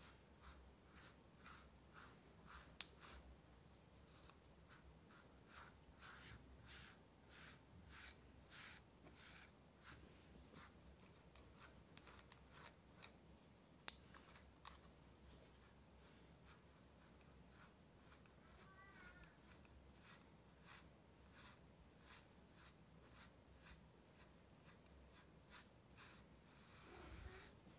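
PetZoom grooming brush raking through a cat's fur in a steady run of soft, scratchy strokes, about three every two seconds. Two brief sharp clicks stand out, one about three seconds in and one near the middle.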